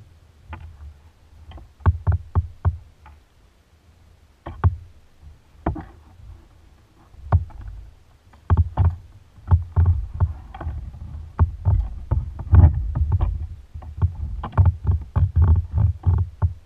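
Irregular knocks and thumps on a plastic sit-on-top kayak as the kayaker shifts his weight and handles gear and the paddle, sparse at first and much busier in the second half.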